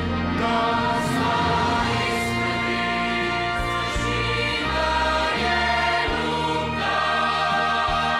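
Mixed choir singing a hymn in held chords, men's and women's voices together.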